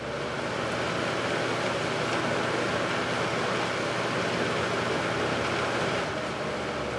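Galaxy 3713 box fan with a plastic Marco motor running on high speed: a steady rush of air over a low motor hum. It comes up to full level in the first second and eases down slightly near the end.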